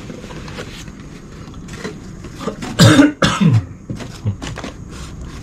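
A person coughs twice in quick succession, about three seconds in, over light handling noise as a cardboard model-kit box is opened.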